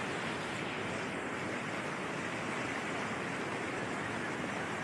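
Fast, muddy floodwater of a swollen river rushing over and around boulders, a steady, unbroken rush of water.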